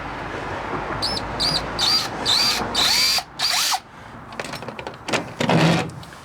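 Power drill with a 3 mm bit run in several short bursts, its motor pitch rising and falling with each pull of the trigger, spotting a pilot mark for the keyhole through the lock into the garage door. A few clicks and one more short burst follow near the end.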